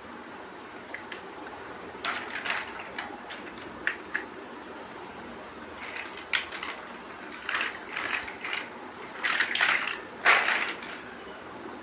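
Plastic building bricks clicking and rattling as they are handled and pressed together, in irregular bursts, the loudest near the end.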